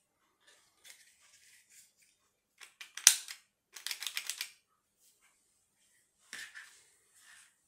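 Hard plastic clicks and rustle from a battery adapter shell being handled and fitted into an electric balance bike's battery bay: one sharp loud click about three seconds in, a quick run of about eight small clicks just after, and another click past six seconds.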